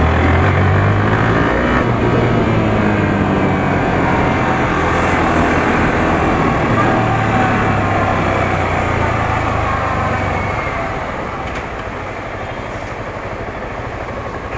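Yamaha R15 V3's single-cylinder engine on the move, its pitch rising and falling with the revs, a little quieter from about eleven seconds in. The rocker tappet noise has just been cured, and the engine runs smoothly.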